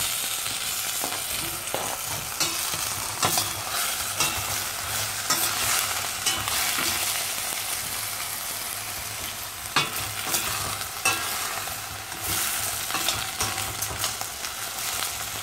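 Beef and courgette chunks frying in a stainless steel pot: a steady sizzle, broken now and then by the clinks and scrapes of a spoon stirring against the pot.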